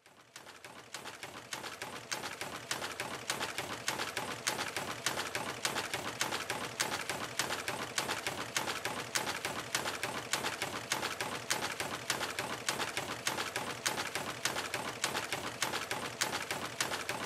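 Weaving loom running, a fast, even mechanical clatter of several beats a second that fades in at the start and then holds steady.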